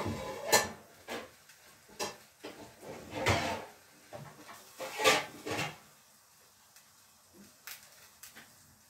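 Kitchen drawers, cupboard doors and pots and lids knocking and clattering as someone rummages for a pan lid: a run of sharp knocks through the first six seconds, then a couple of lighter ones near the end.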